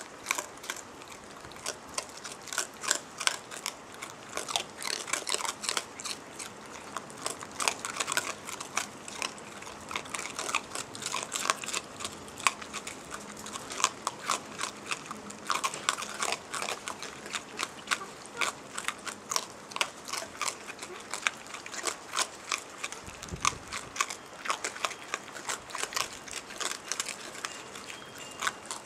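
Raccoons chewing and crunching food close to the microphone: a fast, irregular run of crunches that goes on throughout.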